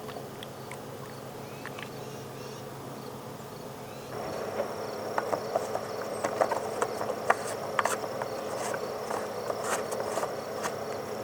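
Motor oil being poured from a bottle into the engine's filler neck: about four seconds in, irregular glugs and plastic bottle clicks start and continue. Crickets chirp steadily in the background.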